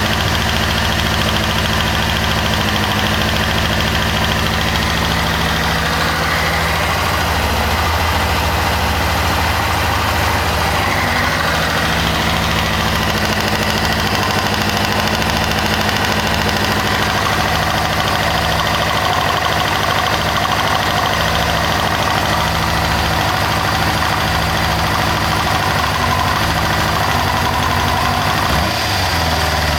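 1998 Kawasaki ZX-6R's inline-four engine idling steadily with a ticking noise. The owner noticed it after a valve adjustment and places it at the rear, under the fuel tank, not at the cam chain. The engine pitch briefly rises and falls near the end.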